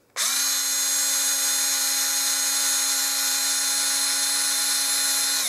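Small Houselux cordless electric screwdriver running, spinning a tiny keyless chuck with a 0.9 mm drill bit as it drills into a block of wood. It is switched on a moment in and holds a steady, high whine.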